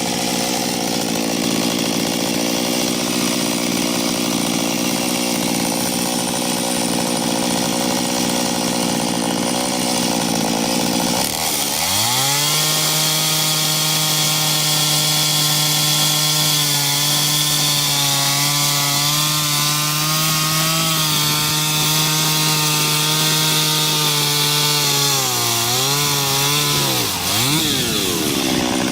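Small chainsaw on a 15-inch bar running hard while cutting into a 20-inch ash tree. Its engine note holds steady, drops sharply and recovers about a third of the way in, wavers a little, then dips and recovers twice more near the end as it loads up and frees.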